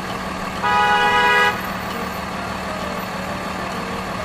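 Car horn sounding once for about a second, over a steady low hum.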